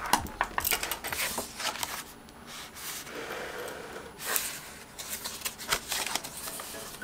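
Paper pages of a Traveler's Notebook being opened and leafed through by hand: irregular rustling and flapping of paper with small sharp ticks.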